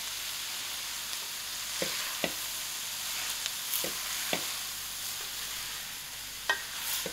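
Shredded cabbage sizzling gently in oil in a stainless steel pot on low heat, a steady hiss. A wooden spoon stirs it and knocks lightly against the pot several times, mostly in pairs.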